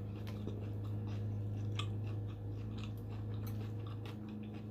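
Close-miked chewing of crispy fried food, with small irregular crunches and wet clicks, over a steady low electrical hum.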